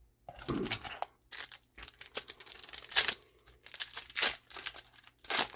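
Trading-card booster pack wrapper being torn open and crinkled in the hands: a run of irregular rips and crackles, loudest about three seconds in.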